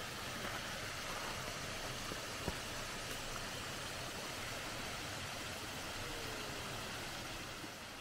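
Steady rush of a small waterfall spilling over rocks into a pond, with one brief click about two and a half seconds in; the sound fades out near the end.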